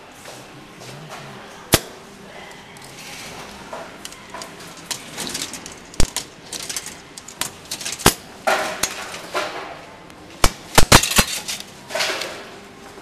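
Coins clinking into a subway ticket vending machine's coin slot. The sharp metallic clicks are scattered, then come as a quick run of about four near the end.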